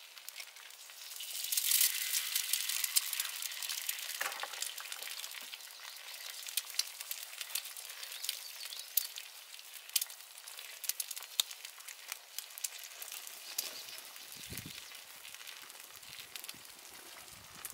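A freshly cracked egg hits a hot griddle and starts sizzling about a second and a half in, then keeps frying with a steady hiss and many sharp pops and crackles that slowly ease off.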